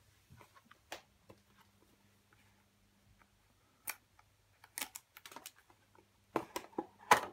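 Cardboard retail box and inner tray of Skullcandy Indy earbuds being opened and handled on a wooden desk: scattered taps, clicks and light scrapes. The knocks come closer together and grow loudest near the end.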